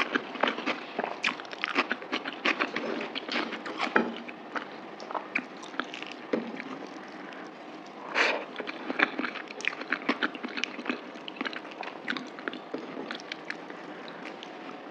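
Close-miked chewing and eating sounds: a steady run of small wet clicks and smacks of someone eating mutton curry with rice, with one louder, longer sound about eight seconds in.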